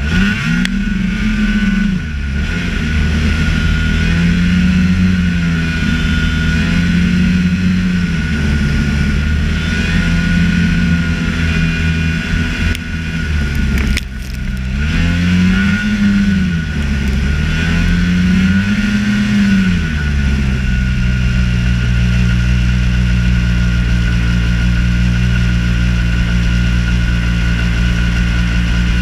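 Snowmobile engine revving up and down in repeated swells, with a couple of sharp knocks about halfway through, then settling into a steady run for the last third.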